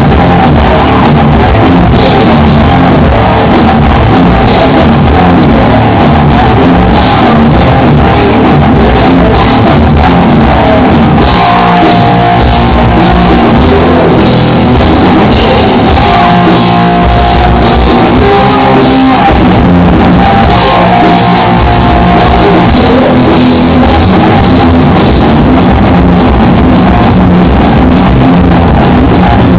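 Guitar and drum kit playing rock together, a band jamming a song. The recording is loud and crushed near full level, with the top end cut off.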